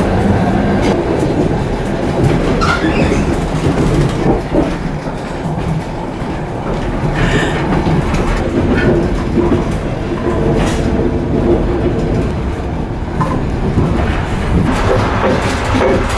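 Russian long-distance passenger carriage running at speed, heard from inside: a loud, steady rumble of wheels on rails, with a few sharp knocks and clatter.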